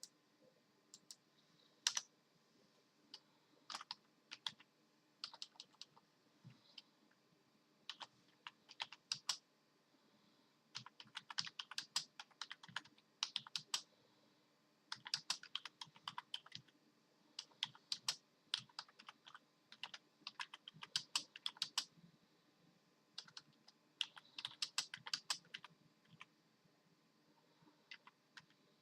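Typing on a computer keyboard: a few scattered keystrokes at first, then quick runs of keystrokes in bursts with short pauses between.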